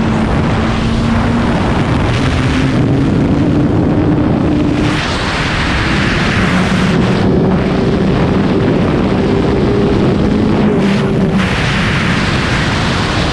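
Suzuki GSX-R1000 K7's inline-four engine at speed on track under wind rush, its note falling, rising and shifting pitch several times. The rush dips briefly about five, seven and eleven seconds in.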